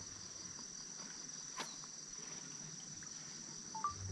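Insects, crickets, trilling steadily on one high, even note, with a single sharp click about a second and a half in.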